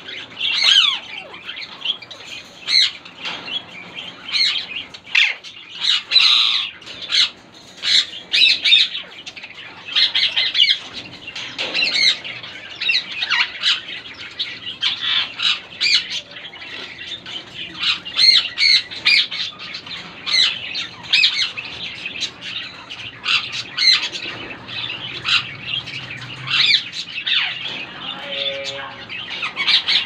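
Alexandrine parakeet calling: many short, loud calls in quick succession, some dropping in pitch.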